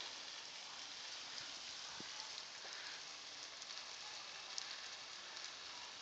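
Garden hose spray nozzle running, a steady faint hiss of water spraying onto grass.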